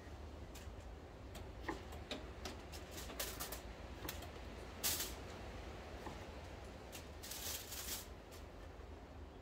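Light taps and clicks of food being handled on a wooden cutting board, with a couple of longer crinkling rustles of aluminium foil, one about halfway through and one near the end.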